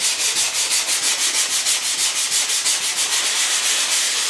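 Sandpaper wrapped around a wooden block sanding blue craft foam in quick, even back-and-forth strokes, about five a second, each stroke a high hiss.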